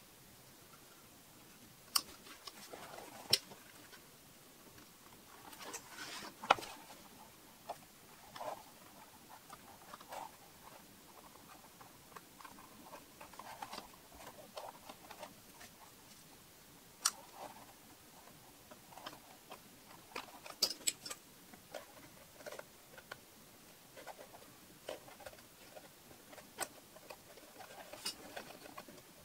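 Metal binder clips being pinched open and snapped onto leather edges, giving scattered sharp clicks amid the soft rustle and scrape of leather being handled.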